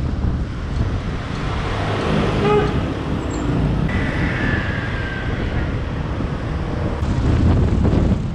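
Motor scooter riding through city street traffic: steady engine, tyre and traffic noise over a heavy low rumble. A short pitched tone sounds about two and a half seconds in, and a slowly falling whine about four seconds in.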